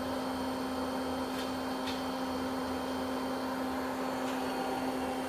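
Main spindle of a 2006 Citizen M20V Type 5 CNC Swiss lathe running at 5,000 RPM: a steady machine hum with a constant low tone.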